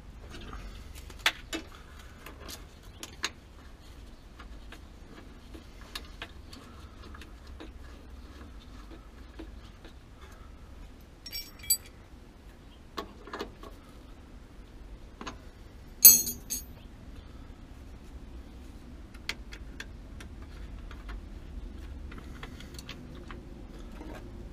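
Scattered small clicks and taps of hand work on the wiring and fittings at a gas water heater's control valve, over a steady low background noise. The sharpest click comes about two thirds of the way through.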